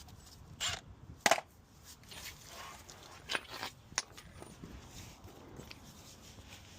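A few scattered sharp metal clicks and knocks from hand tools and a nut being handled while a steering-link nut is fitted. The loudest knock comes just over a second in.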